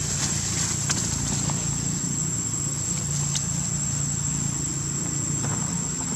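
Steady high-pitched insect buzz over a constant low hum, with a few faint clicks.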